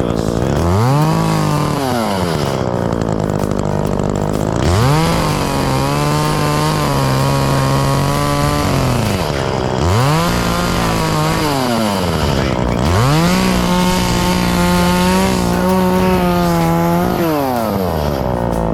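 Two-stroke chainsaw revving up and cutting through brush and small trees, four times: each time the engine climbs quickly to full throttle, holds there while it cuts, then drops back to idle.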